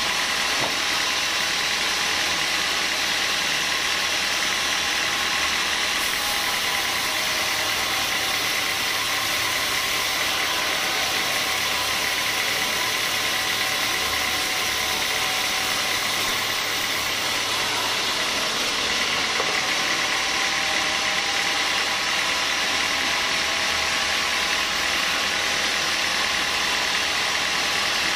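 Band sawmill running steadily as its blade saws lengthwise through a beam of hard small-leaf acacia: a constant, even machine noise with no change in level.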